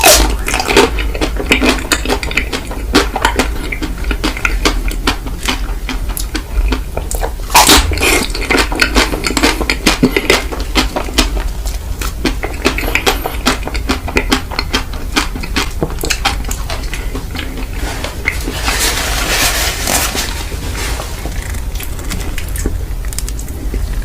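Close-miked ice cream eating: a metal spoon clicking and scraping against a dish or tub in quick, irregular strokes, over a steady low hum, with a longer scraping stretch about three quarters of the way through.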